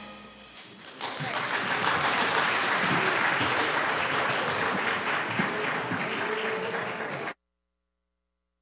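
The last of a song dies away, then an audience claps and applauds steadily for about six seconds until the sound cuts off abruptly.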